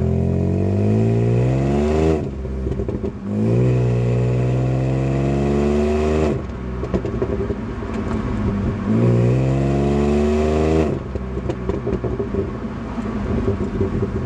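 Opel Signum's 3.2-litre V6 heard at the exhaust tailpipe, revved three times while standing: each rev climbs steadily for about two seconds, then drops back to idle when the throttle is released. After the third rev it settles back to idle.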